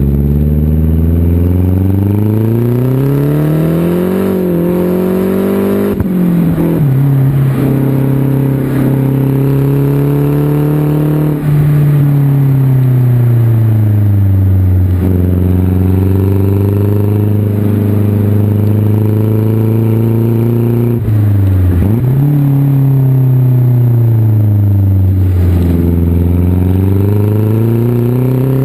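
2010 Mazdaspeed3's turbocharged 2.3-litre four-cylinder through a 3-inch X-Force turbo-back exhaust with a single high-flow cat, pulling up through the revs under acceleration. The pitch drops sharply at a couple of gear changes and falls away slowly off the throttle in between.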